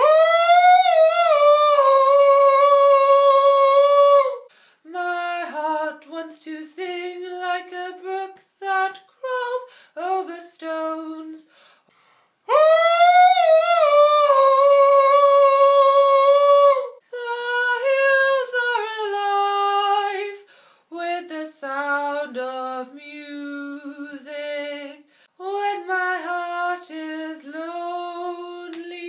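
A single voice singing unaccompanied: a long held high note at the start and another about twelve seconds in, with shorter, lower sung phrases between and after.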